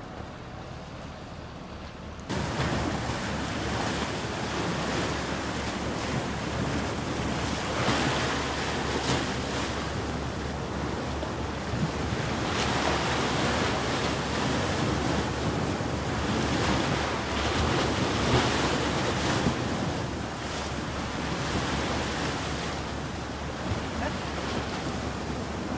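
Sea surf washing over a rocky shore, with wind buffeting the microphone; the sound steps up suddenly about two seconds in and then stays steady.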